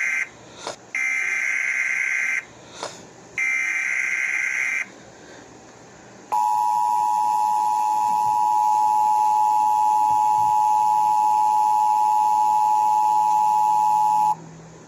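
Emergency Alert System header: the tail of one harsh electronic data burst, then two more, each about a second and a half long with short gaps between. After a pause comes the EAS attention signal, a steady two-tone beep held for about eight seconds before it cuts off.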